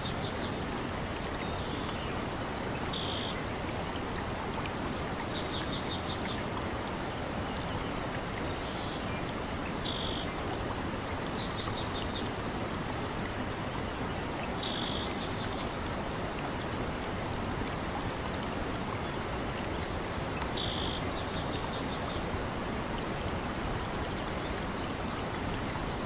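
Steady rush of flowing stream water, with short high trilling calls every few seconds.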